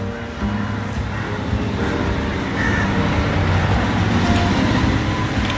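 Road traffic: a motor vehicle passing, its engine and tyre noise a steady rumbling haze that grows louder in the second half.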